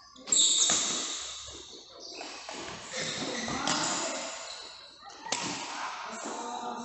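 Badminton rackets striking the shuttlecock in a sports hall: about five sharp, echoing hits at irregular intervals, the loudest about a third of a second in.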